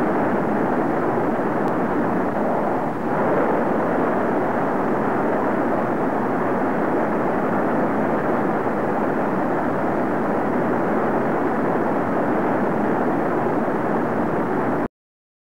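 Steady jet aircraft noise, an even rushing sound with no distinct tones and a brief dip about three seconds in. It cuts off suddenly near the end.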